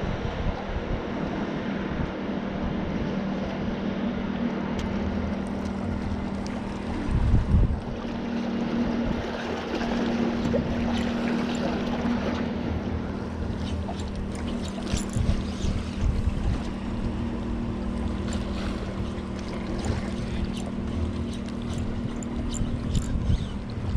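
Steady low drone of a motorboat engine, with wind buffeting the microphone and a loud gust about seven seconds in. Scattered short clicks and taps in the second half.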